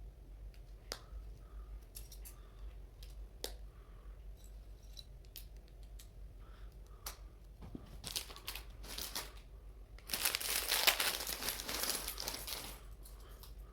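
Small plastic building bricks clicking and tapping as a set is put together, then near the end about three seconds of loud crinkling.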